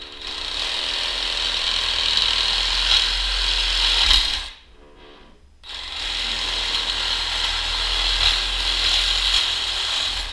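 Handheld reciprocating saw running and cutting through a narrow trim strip, in two spells of about four and a half seconds each with a short stop in between.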